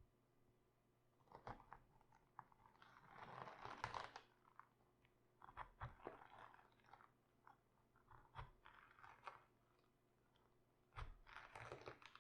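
Raw cabbage crunching and crackling as it is handled for sauerkraut, in a few short spells with scattered clicks. The loudest spell is about three to four seconds in.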